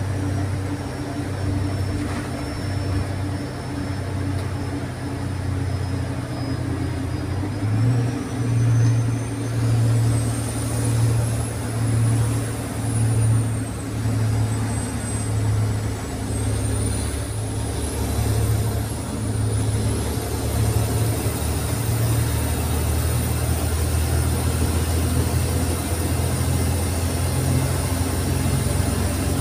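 Wright Eclipse SchoolRun bus heard from the back seats while under way: a steady deep engine drone with road noise. The drone throbs about once a second through the middle, and a faint high whine rises and falls.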